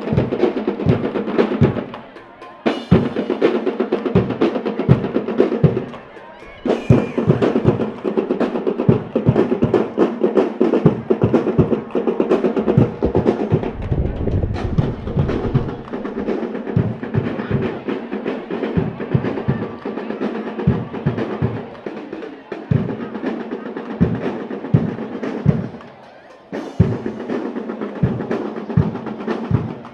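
A percussion band drumming: fast snare rolls and strokes over bass drum hits in a dense, driving rhythm. It drops out briefly about two seconds in, again about six seconds in, and near the end.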